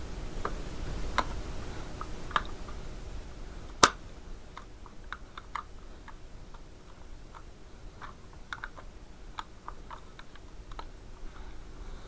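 Irregular small clicks and taps from handling an airsoft rifle's parts, with one sharp, louder click about four seconds in.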